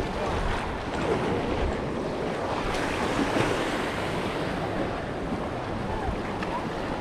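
Sea surf washing against the rocks of a jetty, with wind rushing over the microphone.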